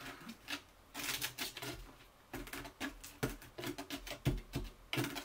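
A CD scraping and pressing down a damp sand-loam fill inside a glass formicarium nest: a quick, irregular run of short scrapes and clicks that starts about a second in.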